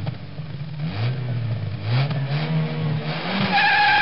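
A car engine revving in a series of quick blips, each a short rise in pitch. Near the end a louder, higher steady whine sets in and holds.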